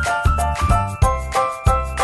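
Upbeat background music with a steady beat and a bright, chiming melody.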